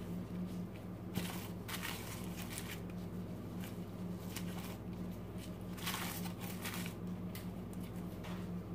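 Plastic-gloved hands rubbing oil and spices into a raw whole chicken in a foil-lined roasting pan: faint, intermittent rustling and crinkling of the glove and aluminium foil, with soft squishing, over a steady low hum.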